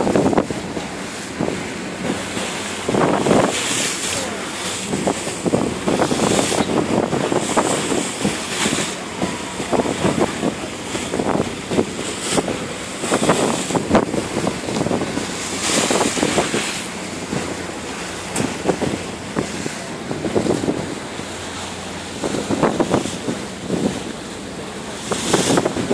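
Wind buffeting the microphone on the open deck of a moving boat, in irregular gusts, over the rush of sea water along the hull.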